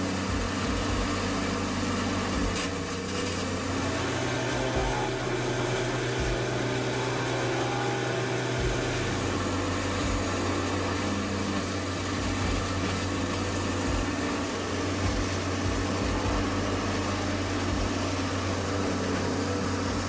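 Morbark 1300 tub grinder running under load, a steady engine drone with a noisy wash of grinding over it. The drone's pitch rises for a few seconds about four seconds in, then settles back.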